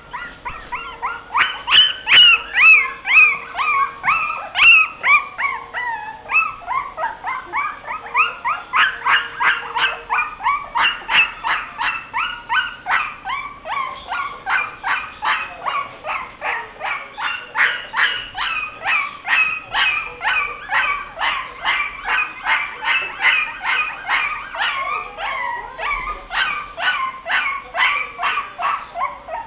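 Young puppies crying in a rapid, continuous run of high-pitched yelps and whimpers, about three a second, with some longer cries in the first few seconds that slide down in pitch.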